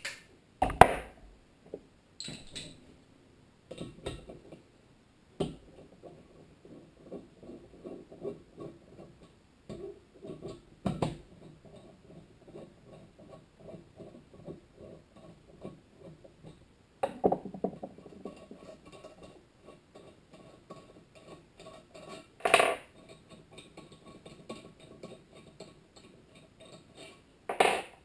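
Connecting rod cap being unbolted and removed from a Tecumseh HSK70 crankshaft with hand tools: runs of small light metal clicks and ticks, broken by several sharp knocks of tools and parts set down on a wooden table, the loudest under a second in. This is the cap coming off after torquing so the squashed Plastigage can be read.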